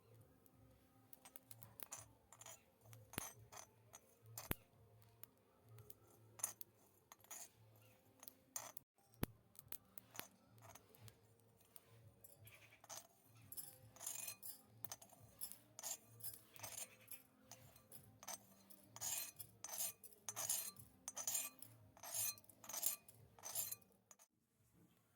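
Light, irregular clicks and taps of small miniature kitchen utensils, sparse at first and quicker, about two a second, in the second half, over faint background music.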